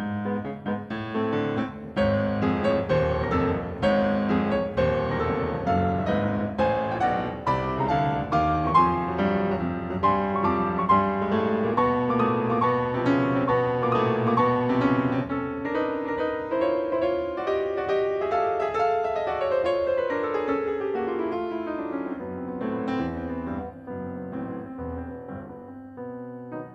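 Instrumental music accompanying a silent film, played on a piano-like keyboard: a busy run of quick notes that grows softer in the last few seconds.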